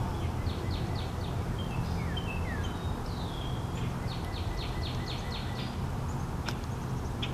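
Wild birds singing: one bird repeats a series of short high notes about eight times, and another gives downslurred whistles. Under them runs a steady low rumble.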